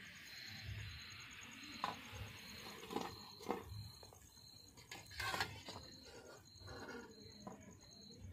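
Faint scattered light clicks and rustles of fried fritters and a plate being handled, with a soft hiss in the first couple of seconds.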